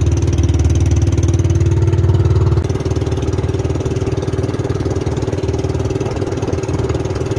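Motorized outrigger boat's engine running steadily under way, its level dropping slightly about two and a half seconds in.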